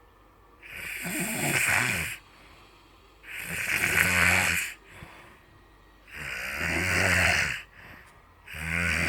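Loud, regular snoring: four snores, each about a second and a half long, coming every two and a half seconds or so. Each is a low buzzing breath with a strong hiss.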